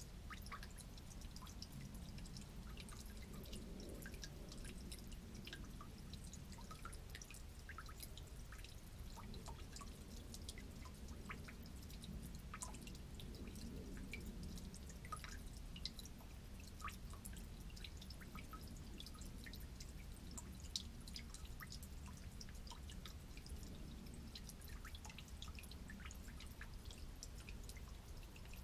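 Really old gasoline dripping from a broken valve on an old generator into a plastic drain pan of pooled fuel: many small, irregular drips, several a second, with a low steady rumble underneath.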